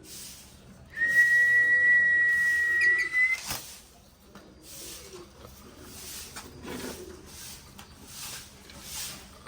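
A single long, steady whistle starting about a second in and held for about two seconds, rising slightly at the end; faint hissing that comes and goes follows.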